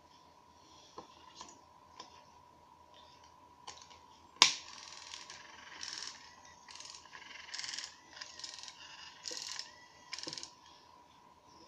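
Plastic casing of a Nikon SB-600 Speedlight flash head being prised apart by hand: a few light clicks, then a sharp snap about four seconds in, followed by a run of short scraping rubs of plastic on plastic.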